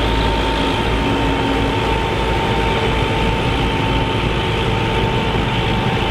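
Massey Ferguson 65 tandem tractor's diesel engines running steadily, with a thin steady whine over the low rumble.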